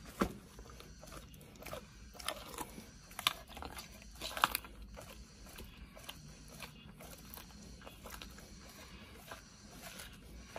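A large dog biting and chewing raw meat, with irregular crunching and tearing. The sharpest bites come near the start and about three to four and a half seconds in.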